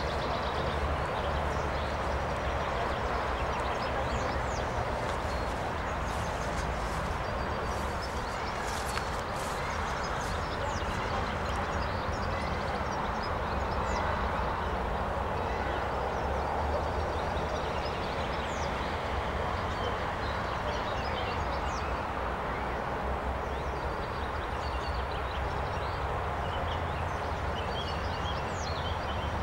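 Steady outdoor rushing noise, like wind on the microphone, with a low rumble underneath and faint short high chirps now and then.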